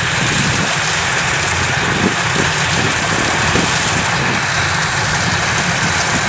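Kubota DC-105X combine harvester running steadily while it cuts standing rice: a constant diesel engine drone under an even, loud hiss from the working machinery.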